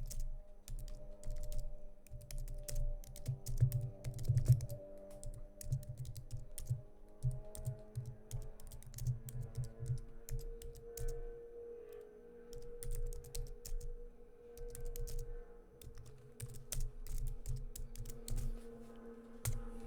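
Typing on a computer keyboard: irregular runs of keystroke clicks with low thuds through the desk, over faint background music of held tones.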